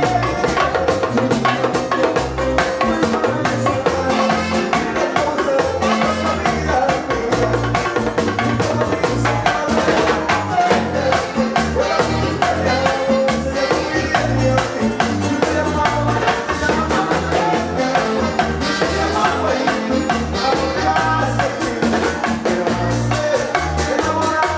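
Live Latin dance band playing: fast, steady percussion from timbales and drums over bass, keyboard and saxophone, with a lead singer at the microphone.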